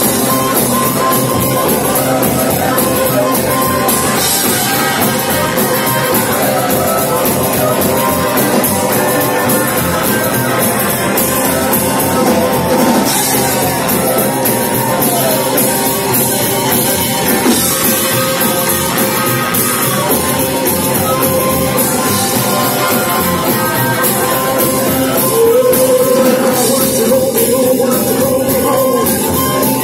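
Live rockabilly-blues band playing at full volume: slapped upright bass, acoustic and electric guitars and drums, with a harmonica played into a cupped microphone. The music is continuous and loud, heard from the crowd in the room.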